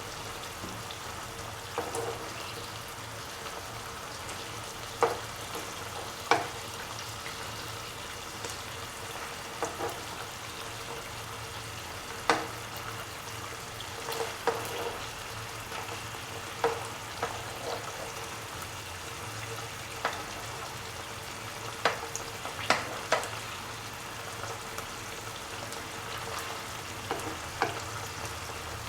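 Anchovies sizzling steadily in hot oil in a non-stick pan, with sharp clicks now and then as a utensil knocks against the pan while the fish are turned.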